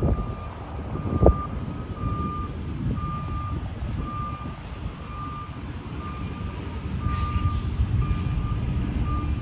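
Vehicle reversing alarm beeping steadily, about one high beep a second, over the low rumble of engines and traffic. Two short low thumps come near the start.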